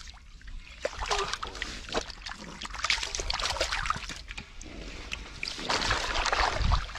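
Hands churning and sloshing through shallow muddy water, feeling in the mud for fish by hand, with many small irregular splashes. It grows louder near the end.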